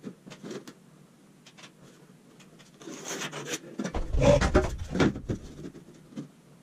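Handling noise from a straightedge rule being set against a wall while lines are marked: scattered light knocks and rubbing, a short scratch about three seconds in, then a run of heavier knocks and rubbing about four to five seconds in.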